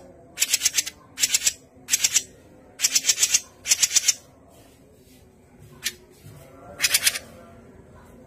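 Cucak jenggot (grey-cheeked bulbul) calling in harsh, rattling chatter bursts, each a quick run of pulses about half a second long. Five bursts come in the first four seconds, then one more near seven seconds.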